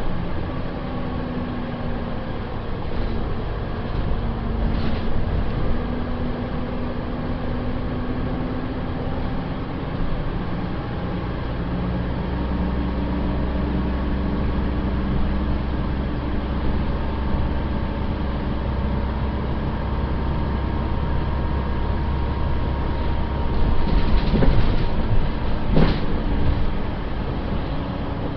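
Moving city bus heard from inside the cabin: the diesel engine runs under steady road noise, its note shifting as the bus changes speed, with a deeper rumble from about ten seconds in. Near the end comes a louder, rougher stretch and one sharp knock.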